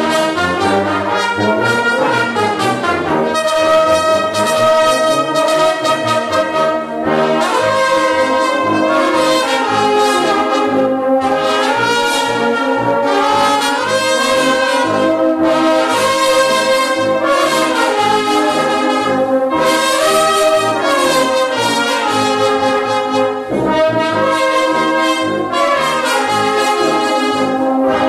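Romanian fanfară brass band playing a tune together, saxophone and brass horns, including a large low horn, carrying a melody over a steady accompaniment, recorded close and loud.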